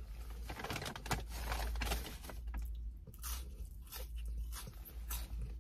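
Close-up chewing of a crispy breaded boneless chicken wing in hot honey sauce: an irregular run of crunches and wet chewing from the mouth, in a car's closed cabin.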